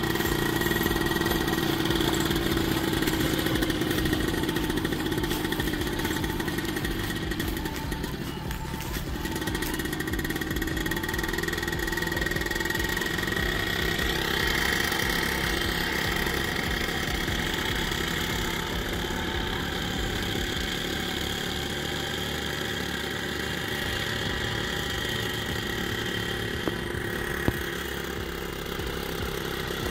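A 120cc paramotor engine and propeller run at a fairly steady speed as the trike taxis, easing off briefly about eight seconds in. Two short clicks come near the end.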